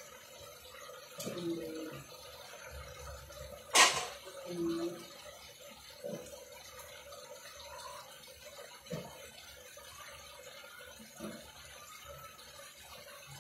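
Faint bubbling and dripping of sliced papaya and chicken simmering in water in a frying pan, with one sharp click about four seconds in.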